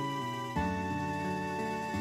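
Background music: a slow, gentle instrumental piece of held notes, with a new chord coming in about half a second in.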